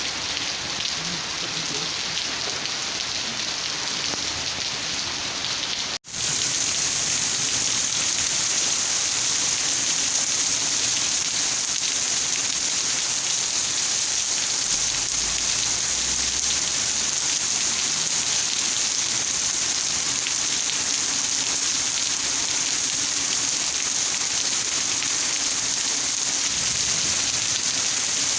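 Steady rain falling, an even hiss of many drops. The sound cuts out for an instant about six seconds in, then comes back slightly louder and brighter.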